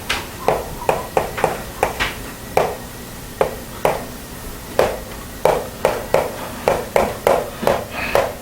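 Irregular sharp taps and knocks of writing strokes on a board, about two or three a second, each with a short ring in the room.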